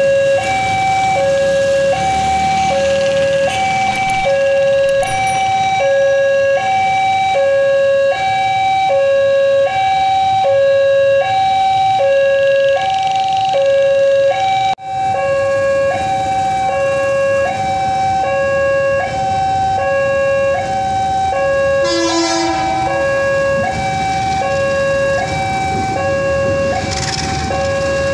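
Railway level-crossing warning alarm sounding a steady two-tone electronic ding-dong, a low and a high note alternating about twice a second. The alarm breaks off briefly about halfway through and starts again.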